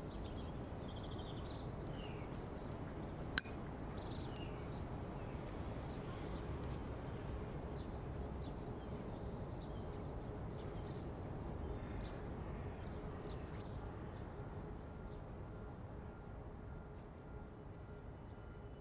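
Outdoor city ambience: a steady low rumble of distant city noise, with small birds chirping here and there. One sharp click about three and a half seconds in.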